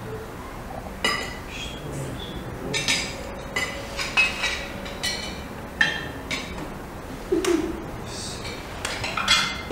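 Forks and spoons clinking and scraping against plates during a meal, a sharp clink every second or so, each ringing briefly.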